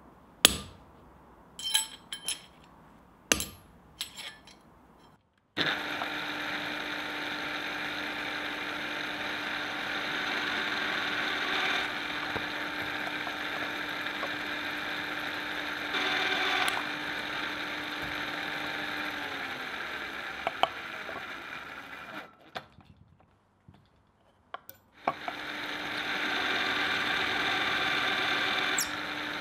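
About five sharp metal taps on the steel handle resting on the anvil. Then a drill press runs steadily, boring a hole through the forged steel handle's end pad and throwing steel chips. It stops for a few seconds near the end, then starts again.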